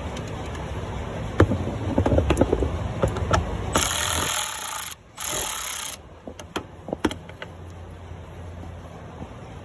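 Tools and metal parts clicking and knocking during hands-on work on a van's blower motor and surrounding parts. Near the middle come two loud bursts of hissing, a second or so each, with a short break between them.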